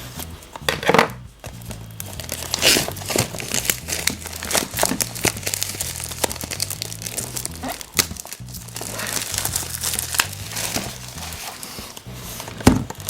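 Packaging crinkling and tearing in irregular bursts as a box of surprise eggs is unwrapped, over steady background music.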